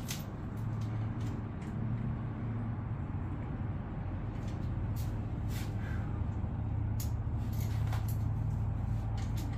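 A steady low drone of a running engine, with a few light clicks and taps in the second half as metal rack hardware is handled.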